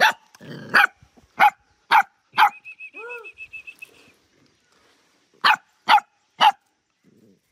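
Puppies yapping in short, sharp, high barks: five in quick succession, then a pause with a fast high trill, then three more near the end.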